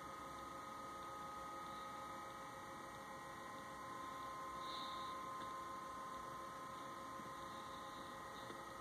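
Faint steady electrical hum with a few thin, high steady whine tones.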